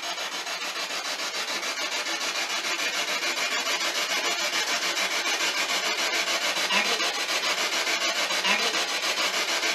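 Spirit box sweeping through radio stations: a steady hiss of static chopped into rapid, even pulses, with a couple of faint snatches of voice-like sound near the end.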